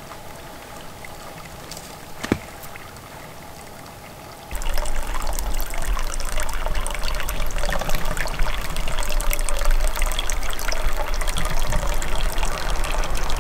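Water trickling from a pipe into a metal stock tank, a steady splashing dribble. It becomes suddenly louder about four and a half seconds in.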